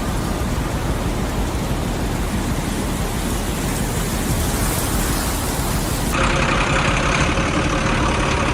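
A motor vehicle running with a steady, dense engine noise. It changes character about six seconds in, where a few steady tones come through.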